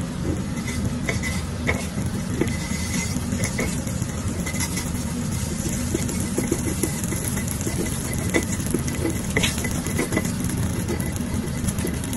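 Beef bouillon cube being stirred and mashed into melted butter with a silicone spatula in a nonstick pan, the butter sizzling faintly, with light scraping clicks now and then. A steady low hum runs underneath.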